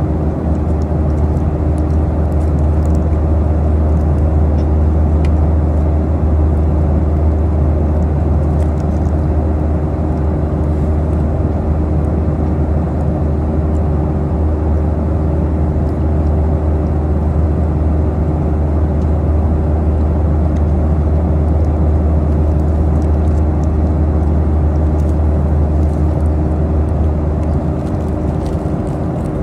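Steady cabin noise of a Boeing 737-800 in flight: a deep, even drone of the CFM56 engines and airflow with a couple of steady tones in it, and faint crinkling of a paper wrapper being handled close by.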